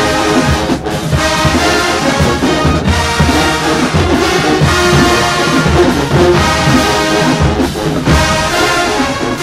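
College marching band's brass section playing a loud, full-sounding tune, with a strong bass line underneath.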